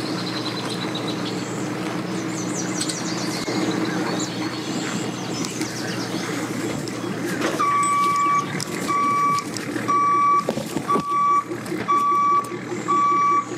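Pickup truck engine running as it backs a boat trailer down a launch ramp. About halfway through, a reversing alarm starts beeping steadily, roughly once a second.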